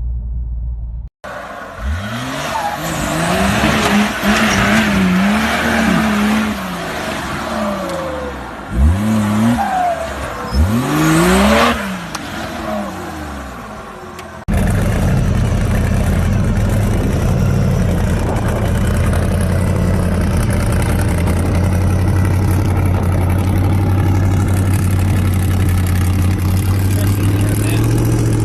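An off-road vehicle's engine revs hard over and over, its pitch climbing and falling repeatedly. After an abrupt cut, an engine runs steadily with a low drone that rises slightly near the end.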